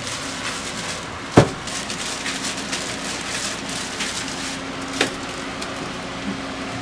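Plastic-gloved hands handling churro dough over a stainless steel tray, with a sharp knock about a second and a half in and a lighter knock about five seconds in. Underneath runs a steady crackly hiss from an electric fan.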